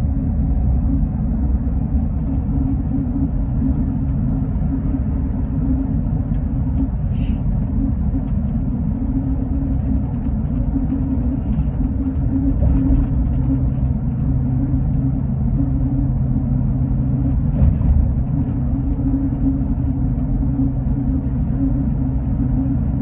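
Engine and road rumble inside a GO Transit bus's cabin while cruising at highway speed, a steady low drone with a low hum settling in about two-thirds of the way through. A couple of light ticks or rattles come about 7 seconds in and again near 18 seconds.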